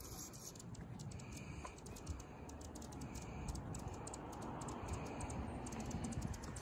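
Hummingbirds giving many rapid, dry chip calls, heard as a quick run of faint sharp ticks throughout, over a low steady background rumble.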